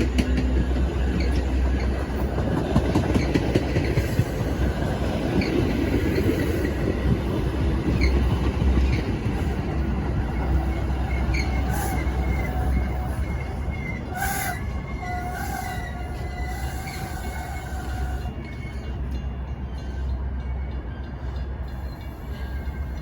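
Metra commuter train rolling into a station and slowing, with a steady low diesel rumble and scattered wheel and brake squeals that cluster in the second half. It grows gradually quieter toward the end as the train comes to a stop.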